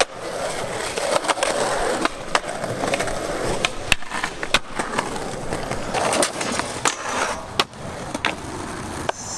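Skateboard wheels rolling on concrete, with repeated sharp clacks of the board popping and landing. The trucks scrape along a concrete ledge in a grind.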